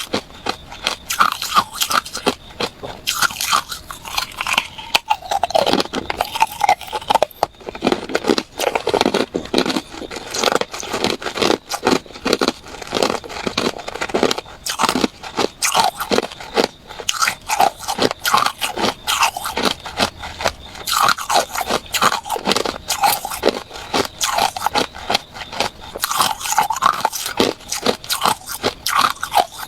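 Close-up crunching of hard ice being bitten and chewed, a dense run of sharp cracks and crackles that keeps going with no let-up.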